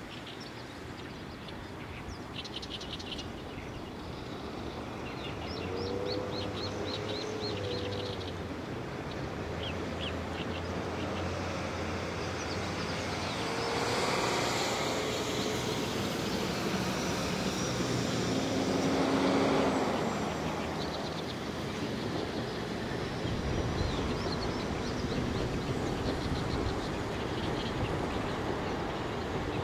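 381 series limited-express electric train running in the distance, its low rumble building as it draws nearer. Birds chirp and call over it.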